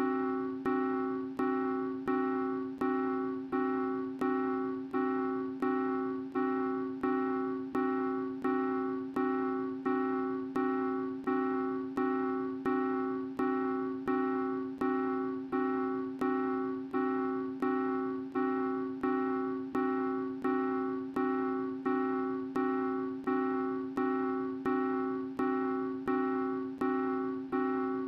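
Background keyboard music: the same piano-like chord repeated in an even, steady rhythm, each strike dying away before the next.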